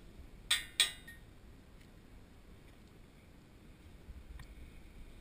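Two sharp clicks about a third of a second apart, small metal strainer parts knocking against a steel implement toolbar.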